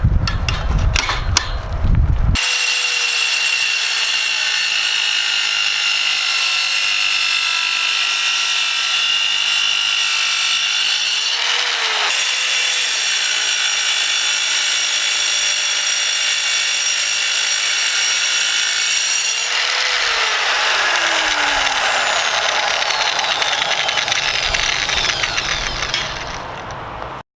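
Angle grinder fitted with a diamond cut-off wheel, running at a steady high whine and cutting steel, after a short burst of knocks and clatter. The pitch briefly bends in the middle and sags later with a rougher, rasping edge, then the sound cuts off suddenly.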